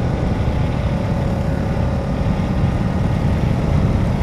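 Ducati Diavel's V-twin engine running at a steady cruise, mixed with wind and road noise at the helmet.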